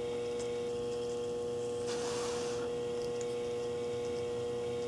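A steady, mid-pitched electrical hum holding one tone, with a faint soft hiss about two seconds in.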